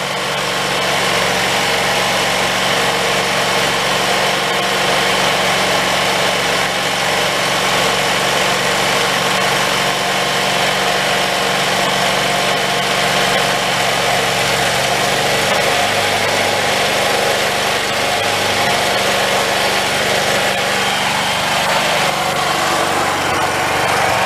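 Predator 8750 generator engine running steadily on wood gas from a charcoal gasifier.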